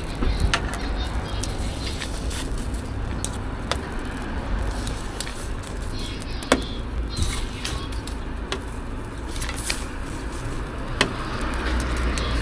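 Street ambience at a food stall: a steady low traffic rumble with scattered sharp clicks and knocks. The rumble grows louder near the end.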